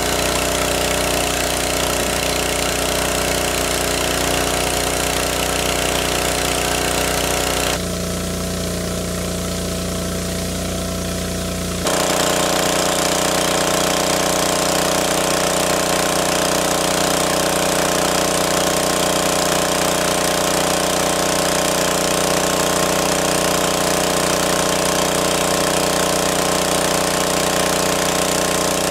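Small engine of a water pump running steadily under load. Its sound shifts abruptly twice, dipping slightly for a few seconds in the first half and then coming back louder.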